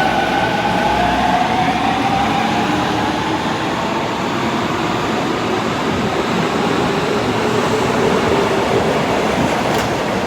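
Osaka Metro 24 series electric train pulling away, with a steady rumble of wheels on rail and motor whine tones that slowly shift in pitch as it gathers speed.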